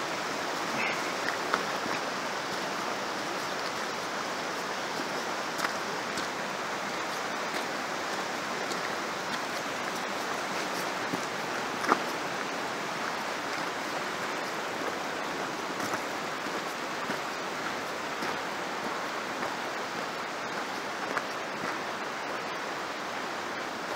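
Steady rushing of a mountain stream running through the gorge, with a few faint clicks scattered through it, the sharpest about halfway.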